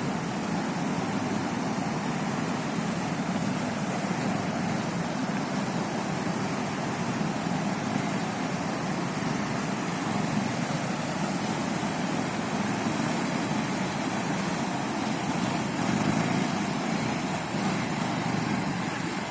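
Bajaj Pulsar 220 motorcycle's single-cylinder engine running steadily.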